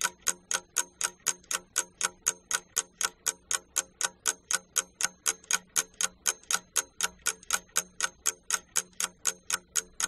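Steady ticking of a clock sound effect, about four sharp ticks a second, evenly spaced.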